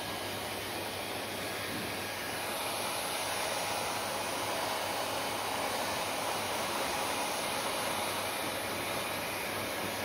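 Handheld hair dryer blowing, a steady rush of air with a low hum, getting slightly louder about two and a half seconds in.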